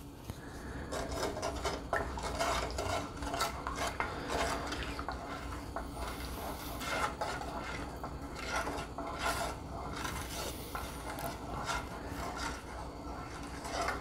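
A wooden spoon stirring heavy cream and melted butter in a frying pan, scraping repeatedly and unevenly across the bottom of the pan.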